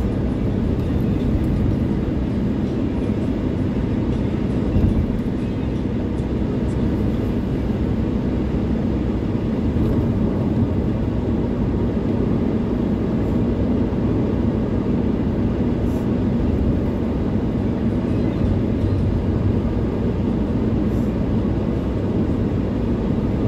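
Steady road and engine rumble heard inside the cabin of a car cruising at highway speed, with a brief thump about five seconds in.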